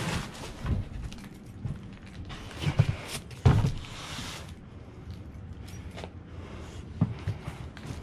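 Scattered thumps and knocks with some rustling, as of equipment being handled and shifted about. The loudest thump comes about three and a half seconds in.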